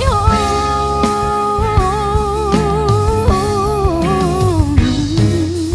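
A solo singer's voice holds a long high note with vibrato, then moves into wavering vocal runs that step down in pitch, over a band with guitar and drums.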